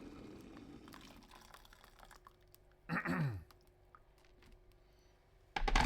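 Light clicks and handling taps, with a short falling hum like a closed-mouth voice about three seconds in, and a heavy thump near the end.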